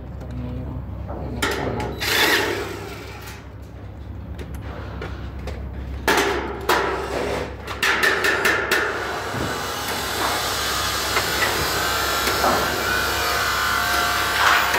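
Work on galvanized steel stud framing: scattered knocks and scrapes, then a quick run of sharp metallic clicks and taps about six to nine seconds in, followed by a steady power-tool whir with a faint whine.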